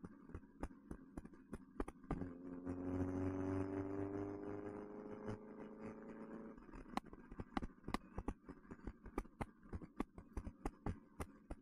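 Engine of a 1969 Alfa Romeo Spider, a twin-cam four-cylinder with an Alfaholics exhaust, heard from the open car. About two seconds in, the engine note rises steadily as the car accelerates. Near the middle it drops away off the throttle. Sharp clicks, about three a second, run throughout.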